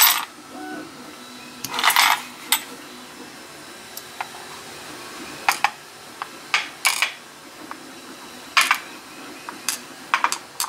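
Small brass lock pins from a CISA rim cylinder's plug clinking as they are tipped out into the slots of a pin tray, with the plug tapping against the tray. A handful of sharp, separate clicks and clinks a second or two apart.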